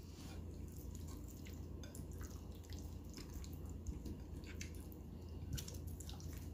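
Hands squishing and mixing raw chicken pieces in a wet marinade in a ceramic dish. The sound is a run of small, irregular wet clicks and smacks.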